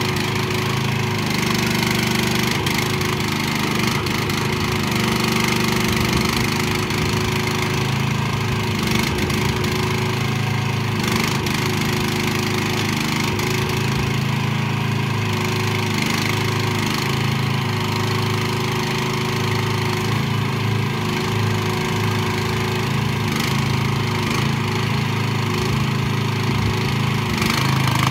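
2024 AGT QK18RXS-C mini excavator's 420cc gasoline engine running steadily while the boom, arm and swing are worked, its note shifting slightly up and down.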